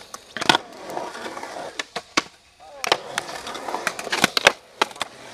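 Skateboard wheels rolling on a concrete bowl, with several sharp clacks of the board and trucks striking the coping and concrete, about half a second in, near two seconds, and a cluster near the end; a short lull comes near the middle.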